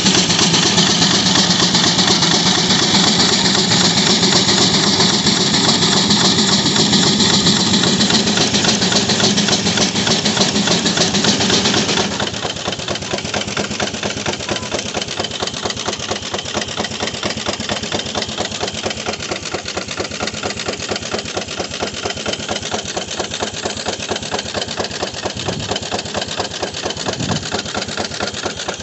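Sawmill driven by a 13 horsepower Gaar-Scott steam traction engine. For about the first twelve seconds it is loud, with a strong hum and a heavy hiss, typical of the blade cutting through a log. It then drops suddenly to a quieter, steady running rhythm.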